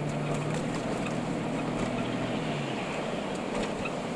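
Car cabin noise while driving: a steady low engine hum over tyre and road noise, the engine tone fading about two and a half seconds in.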